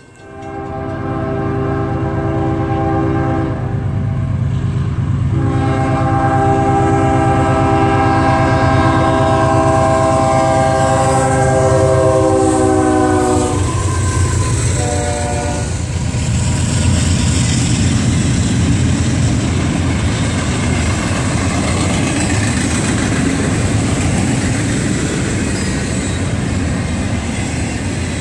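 CSX diesel freight locomotive's air horn sounding at a grade crossing: a long blast, a brief break, then a longer blast that drops in pitch as the locomotive passes, and a short lower-pitched blast. After the horn come the heavy diesel rumble and the rolling clatter of double-stack intermodal container cars going by.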